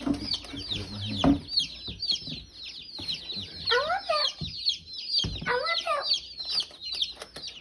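A box of day-old chicks peeping constantly in chorus: many short, high peeps that each drop in pitch, overlapping without a break.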